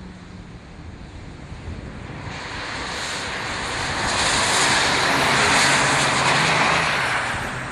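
A vehicle going by: a rushing noise with a low hum that grows louder over about four seconds, then eases slightly near the end.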